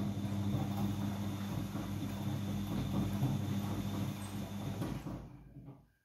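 Siemens iQ100 front-loading washing machine running in its main wash: a steady motor hum with the drum tumbling wet laundry. The sound fades out near the end.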